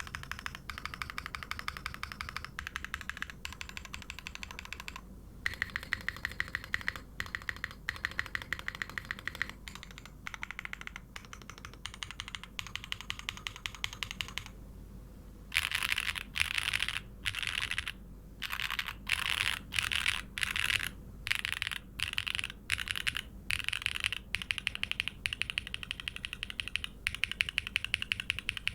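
Typing on a plateless, O-ring-mounted hex.50fe mechanical keyboard with Gateron Raw switches under OP Glass Top housings and GMK Shadow keycaps. Fast, steady keystrokes on the alpha keys come first. About halfway in, these give way to separate quick groups of presses with short pauses between, as the modifier keys and spacebar are tested.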